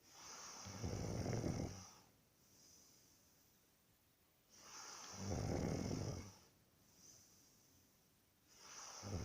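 A person snoring in a slow, even rhythm: two long snores and a third starting near the end, about one every four seconds, each a low rattle with a hiss, with quieter breaths between.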